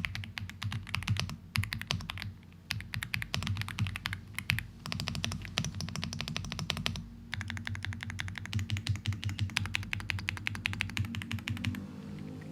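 Fast typing on an Aula F75 mechanical keyboard with Greywood V3 linear switches: dense runs of keystrokes broken by a few short pauses, stopping shortly before the end. The sound is thocky and creamy.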